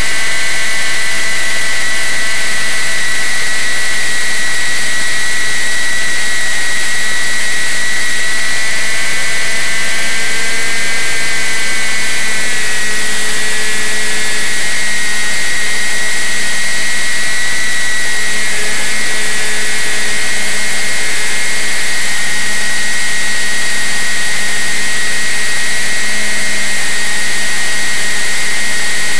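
Motor and propeller of a radio-controlled flying-wing model aircraft in flight, heard up close from a camera on the plane: a loud, steady high whine over a rush of air, its pitch shifting slightly a few times.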